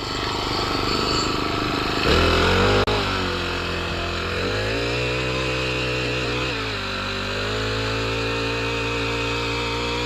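Small gas engine of a rented garden tiller running while tilling soil, its engine speed shifting several times, louder for a moment about two seconds in.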